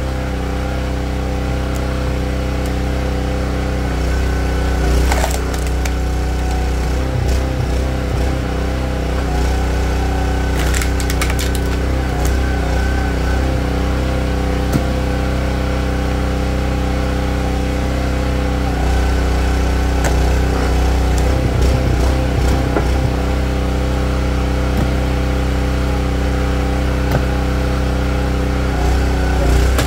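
Small gas engine of a Split-fire 2265 log splitter running steadily, its pitch wavering at times as it takes the load of splitting. A few sharp cracks and knocks of wood splitting come about five seconds in and again around eleven seconds in.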